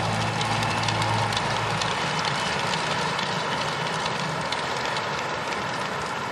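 Large arena crowd applauding, a steady wash of clapping. Music with sustained low notes fades out about two seconds in.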